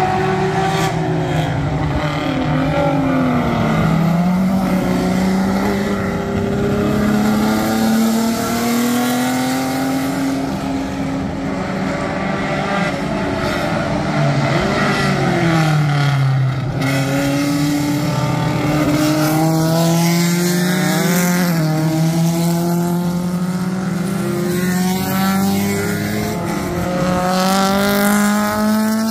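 Small-displacement vintage sports racing car engines running at race pace without a break. Their pitch climbs steadily through the revs and drops sharply at gear changes or braking, about 4 s and 16 s in, with more than one engine heard at once at times.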